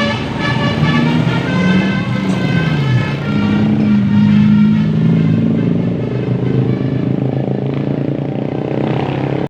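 Bus basuri (telolet) musical horn playing a tune of changing high notes over the bus's engine running. The horn notes are strongest in the first two or three seconds and fade after, leaving the engine's low drone.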